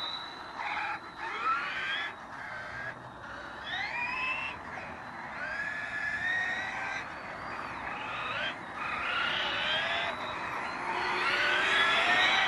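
Motors of several electric radio-controlled cars whining, rising in pitch again and again as the cars accelerate; the whine is loudest near the end as one car passes close.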